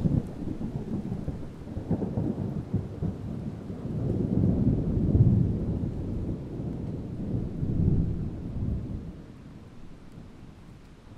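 Distant thunder: low, rolling rumbles that swell and ebb, with a long swell in the middle and another a little later, dying away near the end.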